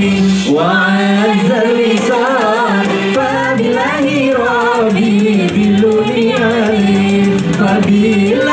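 A woman and a man singing a sholawat (Islamic devotional song) as a duet through microphones, their voices in ornamented, wavering lines, over amplified backing music with a held low note.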